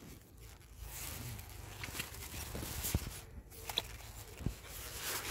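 Handling noise from a handheld phone carried while walking: rustling of clothing against the microphone and a few soft knocks over a low rumble.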